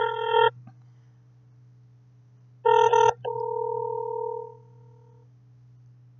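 Cell phone call tones while a call is being placed: a loud tone stops about half a second in, then another short burst comes about two and a half seconds in, followed by a softer tone that fades away over about a second and a half. A steady low hum runs underneath.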